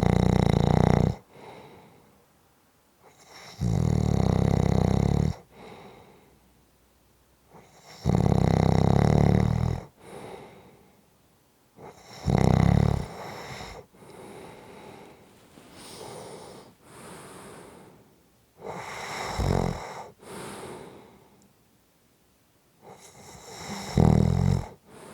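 A person snoring: deep, loud snores come about every four seconds, each followed by a softer breath out. Midway there is a longer gap, with only quieter breaths, before the snores return near the end.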